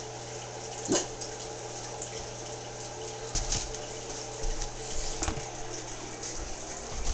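Handling noises: a few scattered knocks and rustles as the ice auger rig is stood up and moved about, over a steady low electrical hum.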